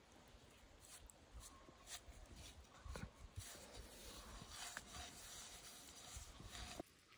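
Faint rubbing and scraping of gloved fingers working spice powder around a clay bowl, with small clicks as the fingers touch the bowl. The sound stops abruptly near the end.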